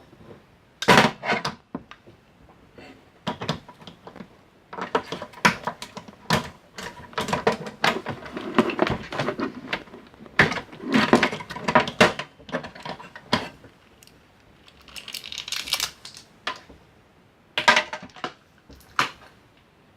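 Pliers working on the plastic and metal of an electronic unit being taken apart: irregular clicks, snaps and clatter in bursts, with a short scrape near the end.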